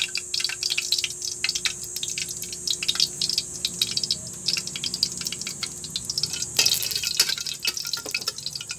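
Cooking oil crackling and spitting in a wok as it is poured in and heats, a dense run of small pops, with a louder stretch of hissing about six and a half seconds in.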